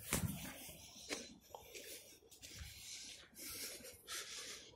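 Faint, irregular rustling and scuffing with a few soft knocks, loudest just after the start.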